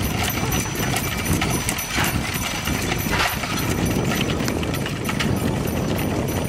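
Wind buffeting the microphone with a low rumble, over irregular wooden clicking and clacking from wind-driven whirligigs turning their propellers and moving figures.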